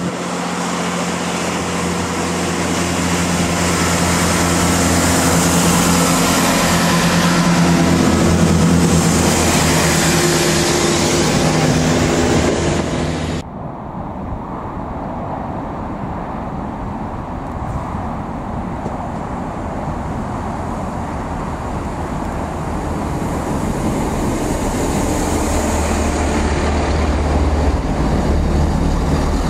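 Diesel engines of a Networker Turbo diesel multiple unit running as it approaches and passes, growing louder. About halfway through, the sound cuts off abruptly to quieter outdoor background. Near the end a second Turbo unit passes close by with a deep low engine sound.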